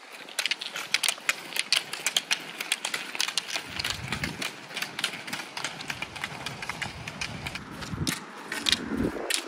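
A group of roller skiers skating on asphalt: many pole tips clicking sharply and irregularly on the road over the steady hiss of the roller-ski wheels.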